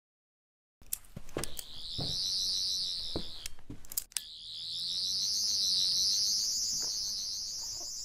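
Doctor Who sonic screwdriver scanning sound: a high warbling electronic whine that slowly rises and falls in pitch. It begins shortly after the start, drops out briefly about four seconds in, then climbs again. A few sharp clicks sound in the first half.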